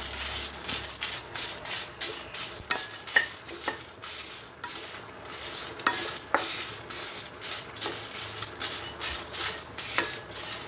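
Wooden spatula stirring and scraping dry-roasting whole spices, dried red chillies and coriander seeds, around a nonstick kadai in quick, repeated strokes, the seeds rattling against the pan.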